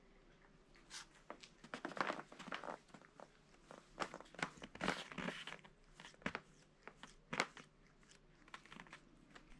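A cat's paws and claws scraping and crinkling the cardboard pizza boxes it is standing on, in irregular crackly scratches. They start about a second in and are heaviest in the middle.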